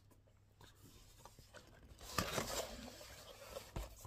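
Faint rustling and crackling of paper and card as a papercraft is handled, starting about two seconds in, with a soft low knock near the end.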